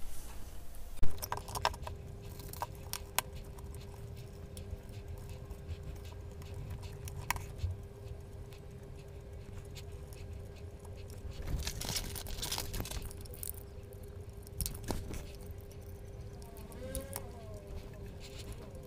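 Scattered light clicks, taps and rattles of plastic and small parts being handled as the circuit board is lifted out of an analog multimeter's plastic case, over a faint steady hum.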